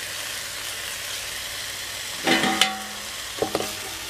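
Mutton leg sizzling steadily on a hot dosa griddle under a banana leaf. A little past halfway, a stainless steel bowl is set down upside down over it, clanking and ringing twice about a second apart.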